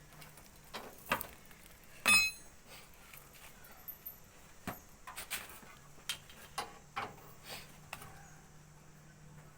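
Scattered clinks and knocks of metal tools and parts being handled. The loudest is a ringing metal clink about two seconds in.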